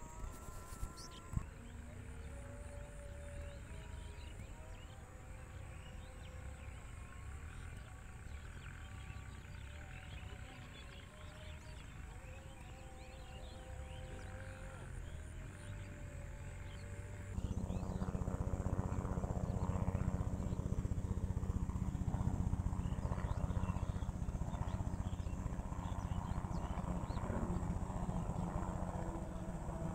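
Rural outdoor ambience with scattered short, steady-pitched calls over a constant thin high hiss; about seventeen seconds in it cuts abruptly to a louder, steady low engine hum.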